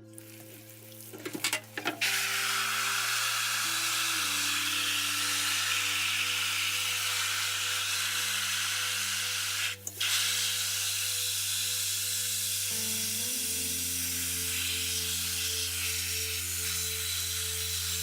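A jet of water spraying steadily onto a silk screen, rinsing off emulsion loosened by Drano. It is a loud, even hiss that starts about two seconds in and breaks off for a moment around the middle, over sustained background music.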